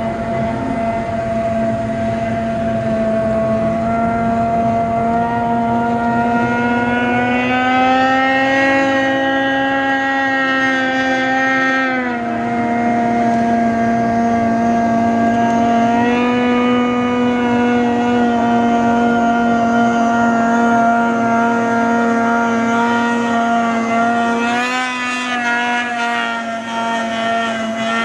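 Ski-Doo snowmobile engine running at high revs as the sled skips across open water. Its pitch climbs midway, drops sharply about twelve seconds in, rises again and wavers near the end as the throttle changes.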